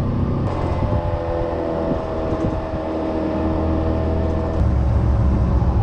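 Motor scooter engine running with a steady low rumble, growing louder about four and a half seconds in.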